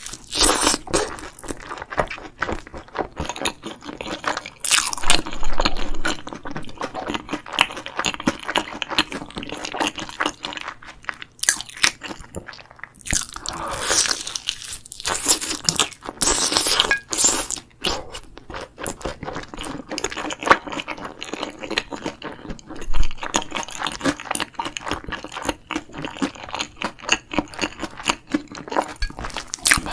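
Close-miked crunching and chewing of yangnyeom chicken (Korean fried chicken in a sweet-spicy glaze), the crisp coating crackling in irregular bursts of bites.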